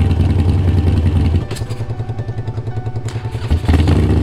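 Sport motorcycle engine running loud and steady, dropping back to a pulsing idle about a second and a half in, then revved up again a little before the end.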